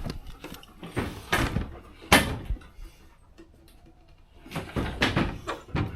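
A few scattered knocks and rustles, the loudest about two seconds in, with another cluster near the end.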